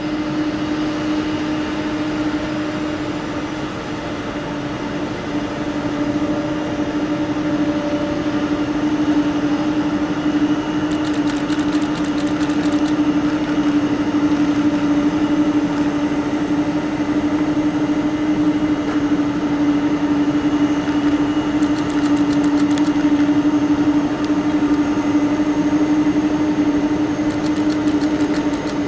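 Jet airliner engines running at taxi power: a steady drone with a strong, even low hum.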